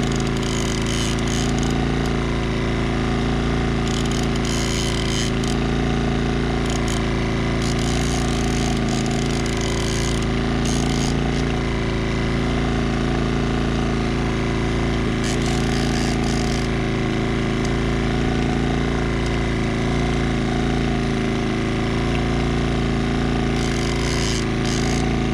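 Small outboard motor running steadily, a constant engine hum throughout.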